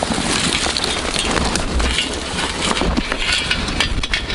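Footsteps trudging through deep snow, an irregular run of crunches and swishes, with dry stems and clothing brushing against the microphone.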